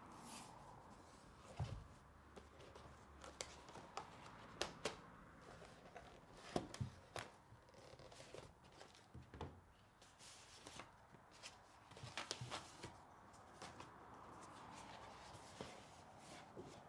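Paper handling: a card document folder being opened and sheets of paper lifted out, with soft, irregular rustles and light taps of paper against the folder and table.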